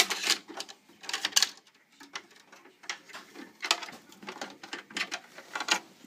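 Irregular clicks, rattles and scrapes of hands working inside an opened dehumidifier around its copper evaporator coil, freeing the temperature sensor. The clicks come in clusters, the loudest at the very start and about a second in.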